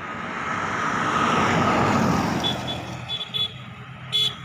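A motor vehicle passing close by on the street, its noise swelling to a peak about two seconds in and then fading away, with a few short high beeps near the end.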